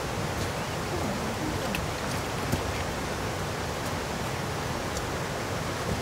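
A steady, even rushing hiss, with a few faint ticks.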